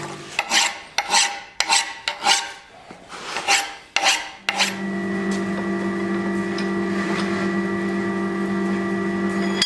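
A hand file or rasp being worked in quick strokes, about eight of them with a short break in the middle. About halfway through the strokes stop and a steady background music drone takes over.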